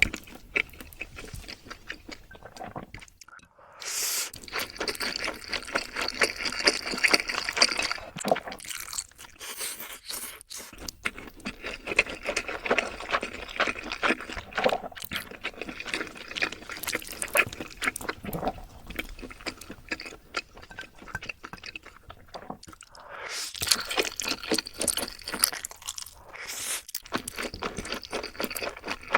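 Close-miked eating sounds: wet chewing and slurping with crunchy bites, as Jjapaghetti black-bean noodles and fried chicken are eaten. They come in three louder bouts with quieter stretches between.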